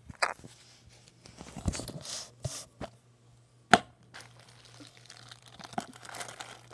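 Rustling and handling noises with several sharp knocks and clicks, the loudest about three and a half seconds in, over a faint steady low hum.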